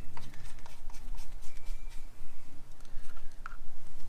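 Scattered light clicks and taps of small car parts being handled and tossed into a container, over a steady low hum.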